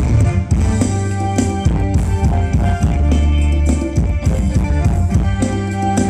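Live band playing Thai ramwong dance music, with a steady drum-kit beat and a bass line under it.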